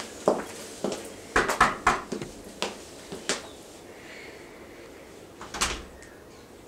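Footsteps of two people walking on hard ground, short sharp steps about every half second, stopping about halfway through; a single sharp thump near the end.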